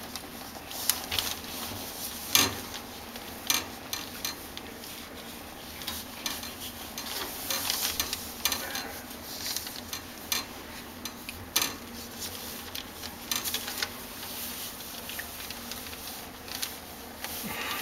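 Newspaper rustling and crinkling under a squirming kitten being stroked, with scattered sharp clicks and taps.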